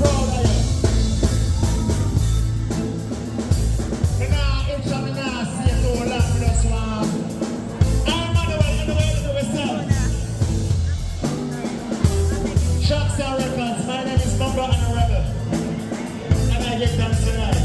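Reggae-dancehall style song with a heavy bass beat and a male vocal singing.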